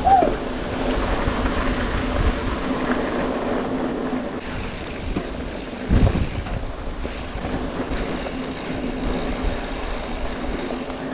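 Mountain bike riding along a dirt singletrack: tyres rolling on dirt and a steady mechanical rattle and hum from the bike, with a thump about six seconds in as it goes over a bump.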